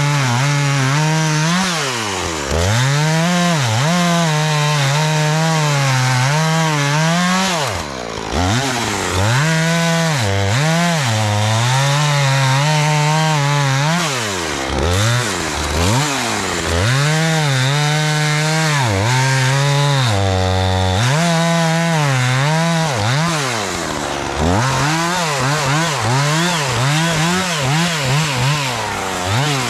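Two-stroke chainsaw running at high revs while cutting logs, its pitch sagging and recovering again and again as the chain bites. The engine drops off sharply and revs back up four times.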